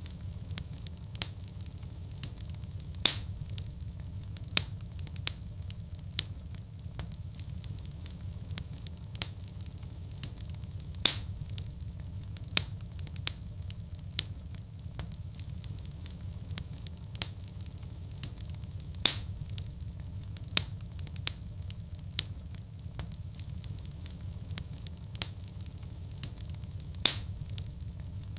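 Fireplace fire crackling: a steady low rumble of burning with frequent small snaps and a sharper, louder pop about every eight seconds.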